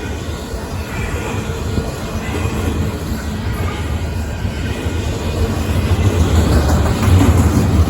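Union Pacific intermodal freight train rolling past, a steady low rumble of steel wheels on the rails that grows louder about seven seconds in.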